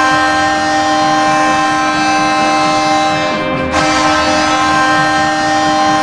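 Hockey arena goal horn sounding a loud, steady chord of several tones, briefly dipping and re-sounding about three and a half seconds in.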